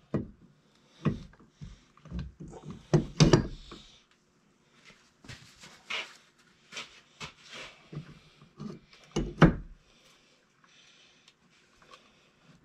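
Cylinder of a Rotax two-stroke twin being worked down over its piston and seated on the crankcase: scattered knocks and clunks, the loudest about a second in, around three seconds in and about nine and a half seconds in, with a paper shop towel rustling between them.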